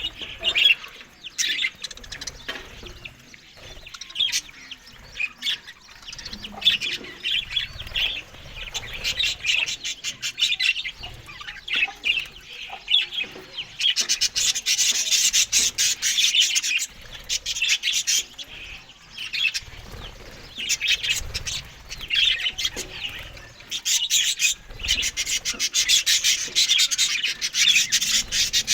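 Budgerigars chattering and chirping in a busy, continuous warble, getting fuller and louder from about halfway through.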